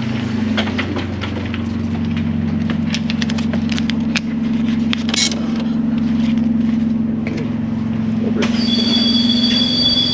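City bus engine running with a steady low hum, with a few sharp clicks partway through. About eight seconds in, a steady high two-note whine starts and holds.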